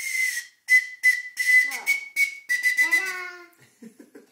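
Tiny toy recorder blown in a quick series of short, breathy toots on one high note, about eight in all, ending about three seconds in.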